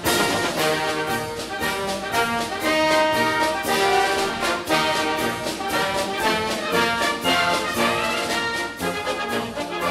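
Instrumental background music, orchestral with brass, playing held notes over a steady beat.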